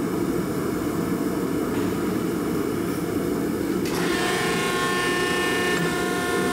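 Steady low rush of a gas forge and a running hydraulic press. About four seconds in, the 16-ton hydraulic press begins squeezing the glowing billet, and a steady whine of several tones sets in: the first set of the forge weld on a go-mai knife billet.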